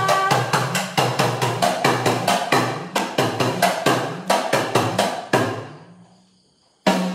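Idakka, the Kerala hourglass drum, struck with a thin stick in a quick even run of about five strokes a second, its low tone wavering in pitch; the strokes die away about five and a half seconds in, and one more sharp stroke comes near the end. A woman's singing voice ends just as it begins.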